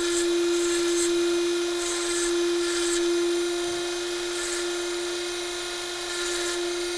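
Rotary carving tool spinning a fine burr, a steady whine, with short scratchy bursts each time the burr cuts a small line into antler.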